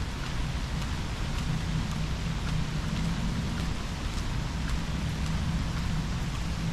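Steady rain falling, with individual drops ticking close by now and then over a steady low rumble.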